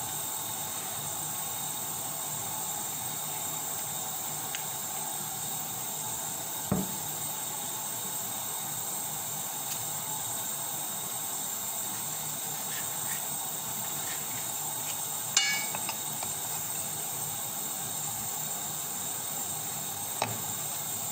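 Steady background hiss with a few isolated sounds of kitchen utensils: a sharp knock about seven seconds in, a light clink around fifteen seconds in, and another near the end.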